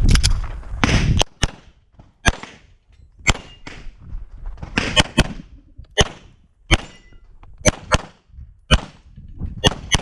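A semi-automatic handgun being fired through an IPSC course of fire: about a dozen sharp pistol shots, single shots and quick pairs, with short pauses between groups. A loud rushing noise fills the first second before the shooting.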